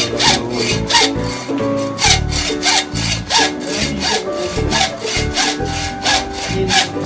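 Hacksaw cutting through a mountain bike handlebar to shorten it, in quick back-and-forth strokes about three a second.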